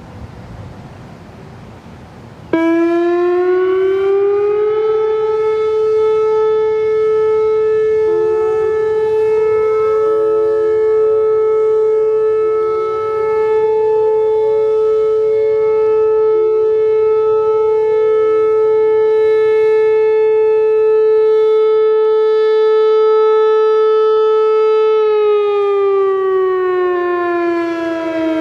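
Whelen WPS-4004 electronic outdoor warning siren sounding its steady alert tone (435 Hz) for a test. It comes on about two and a half seconds in, slides up in pitch over about two seconds, holds one loud tone for about twenty seconds, then slides down near the end.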